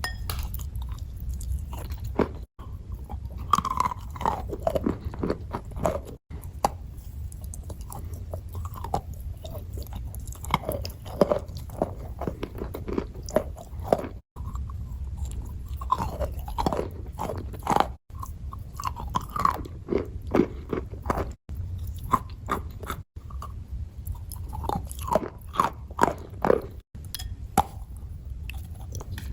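A person biting and chewing chalk close to the microphone: many irregular, crisp crunches over a steady low hum, with several brief dropouts where the audio cuts.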